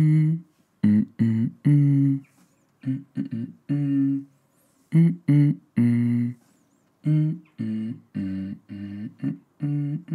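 A man's voice singing a wordless tune in short, steady-pitched notes, grouped in twos and threes with brief pauses between them.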